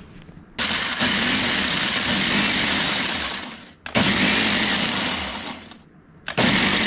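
Countertop blender grinding dry onion-ring snack chips to a fine powder. It runs in three pulses of a few seconds each, starting about half a second in, about four seconds in and just before the end, and the motor winds down between pulses.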